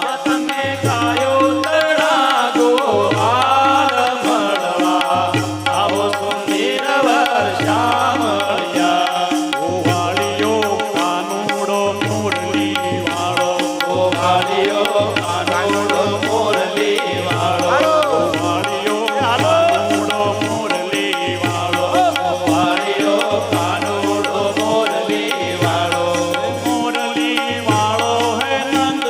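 Instrumental passage of Gujarati devotional music: a wavering melody line over steady held tones, with a deep bass beat about every second and a half and tabla-like percussion.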